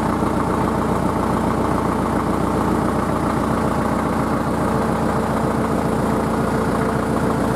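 ZTM-60 (YuMZ) tractor's diesel engine idling steadily.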